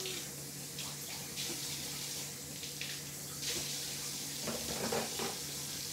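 Kitchen tap running steadily into a sink, with a few light knocks as a container is rinsed under it.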